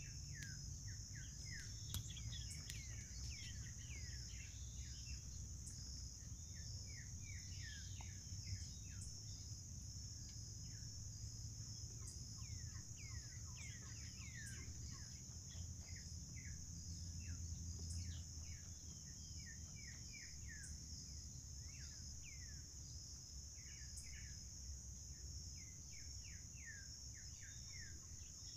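Forest ambience: a steady, high insect trill throughout, with many short, quick descending bird chirps over it and a low rumble underneath.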